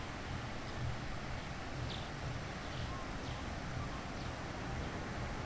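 Beach ambience: the steady wash of sea waves under a low wind rumble on the microphone, with a few short, faint high calls in the distance.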